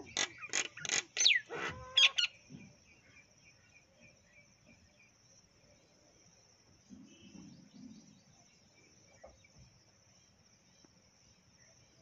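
Common mynas calling: a quick run of loud, harsh calls and whistles, one sliding down in pitch, over about the first two seconds, then only faint soft sounds. A steady high trill continues underneath throughout.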